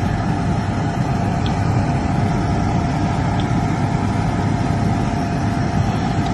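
A steady low machine hum with a faint constant tone running through it, even in level, with a couple of tiny ticks.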